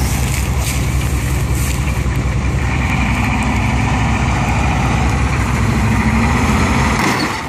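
M135 army truck's engine running with a steady, low pulsing rumble as the truck moves, fading down about seven seconds in.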